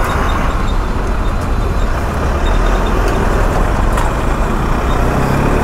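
Steady highway road and traffic noise heard from a motorcycle on the move, mostly a low, even rumble.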